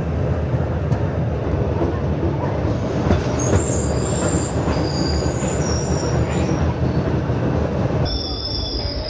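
Passenger train running on the rails with a continuous low rumble. From about three and a half seconds in, several thin, high-pitched wheel squeals sound over it.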